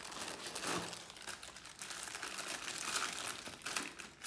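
Clear plastic packaging bags crinkling and rustling irregularly as hands rummage through them in a cardboard box.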